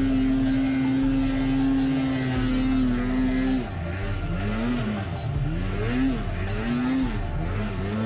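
Snowmobile engine revved high and held steady for about three and a half seconds, then blipped up and down about five times in quick succession, as the rider works to free a sled bogged in deep snow.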